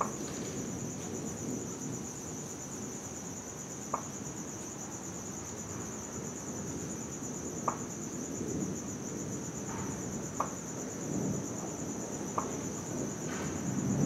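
A steady high chirring of night insects over a low, distant thunder rumble that swells and fades a few times, with a few short sharp ticks scattered through.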